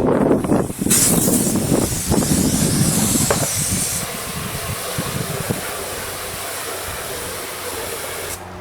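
Brief scrubbing noise, then a long steady hiss of spray during the cleaning of plastic car trim. The hiss is loudest for about three seconds, then eases and runs on more softly before stopping just before the end.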